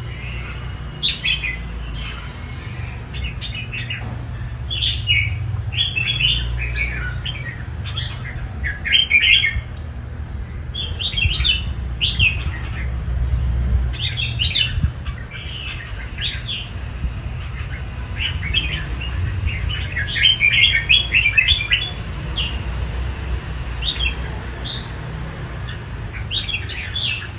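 Red-whiskered bulbul singing in short bursts of quick chirpy notes, a phrase every second or two, over a steady low hum.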